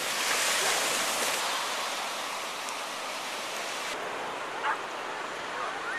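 Ocean surf washing through shallow water, an even rushing hiss that is loudest in the first second or so. About four seconds in it gives way to a softer beach ambience, with one brief short sound a moment later.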